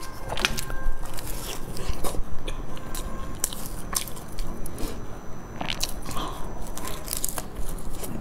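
Close-miked biting and chewing of a flaky egg tart, the pastry crunching in many short crackles.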